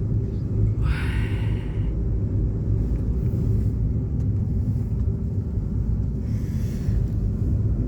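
Steady low rumble of a moving vehicle heard from inside, with a faint steady hum, broken by two brief higher-pitched sounds, one about a second in and one near the end.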